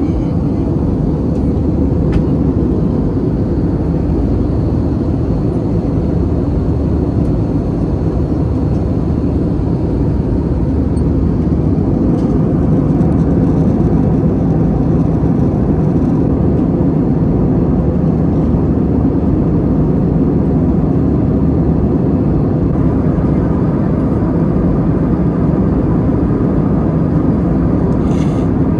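Steady cabin noise of an Airbus A320-200 in cruise flight: engine and airflow noise heard as an even low rumble, with a faint high whine through the first half.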